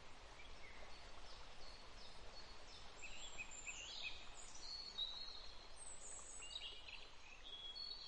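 Faint outdoor nature ambience with small birds chirping, short high calls that come thicker from about three seconds in.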